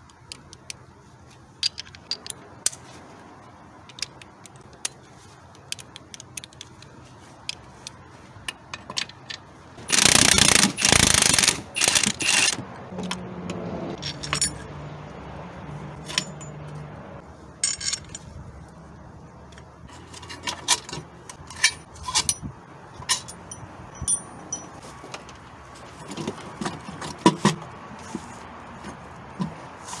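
Hand tools clinking and tapping on metal around a car engine as the intake manifold's bolts are undone, with scattered sharp clicks throughout. About ten seconds in there is a loud, noisy burst lasting roughly two and a half seconds.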